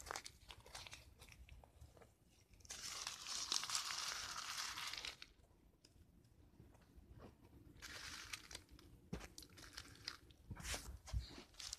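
Paper DVD case being crumpled and torn: scattered crackles, with a longer tearing rustle about three seconds in and a weaker one about eight seconds in.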